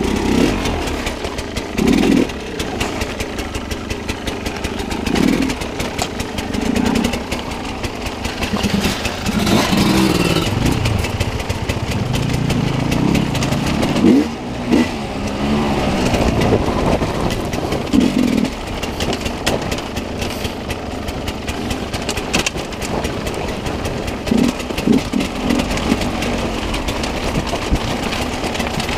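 Enduro dirt bike engine being ridden hard, revving up and dropping back again and again with short throttle bursts, under a constant rough rattling noise.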